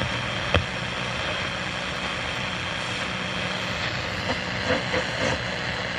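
Steady static hiss from a Panasonic RF-1150 portable radio's speaker, tuned to the CB band between transmissions, with one sharp click a little after half a second in.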